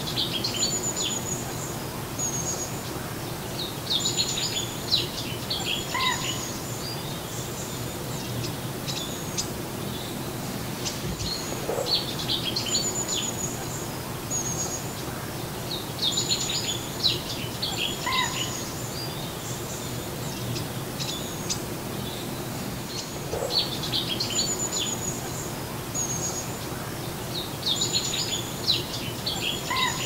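Small birds chirping and twittering in short clusters over a steady outdoor hiss. The same run of chirps comes back about every twelve seconds, like a looped birdsong ambience track.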